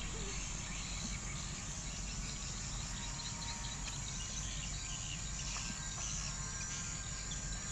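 Outdoor ambience of steady insect chirring, crickets or cicadas, over a low steady rumble.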